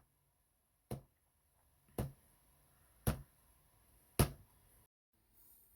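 Four sharp taps or knocks, evenly spaced about a second apart, each dying away quickly.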